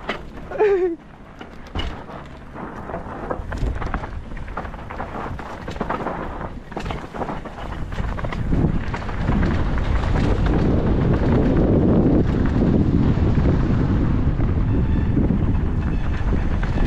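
Mountain bike descending a dirt trail: tyres rumbling over loose dirt and wind buffeting the microphone, growing louder from about eight seconds in as speed builds. A brief squeal falling in pitch about half a second in, and a few knocks from the bike over rough ground in the first seconds.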